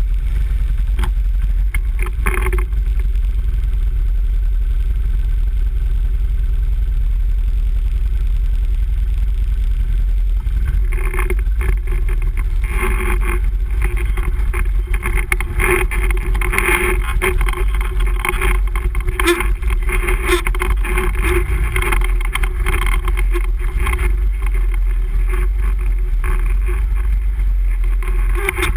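Can-Am Renegade ATV engine running as the quad rides a gravel trail. About eleven seconds in the engine grows louder and harsher as it picks up speed, and stays up after that.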